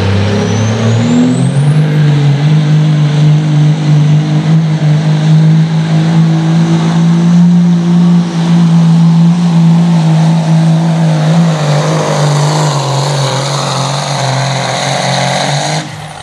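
Diesel pickup engine, a Dodge Ram's Cummins straight-six, running at steady high revs under heavy load while pulling a sled, loud and held, its pitch dipping slightly about two-thirds of the way through. A high whistle climbs over the first couple of seconds and then holds. The sound cuts off sharply just before the end.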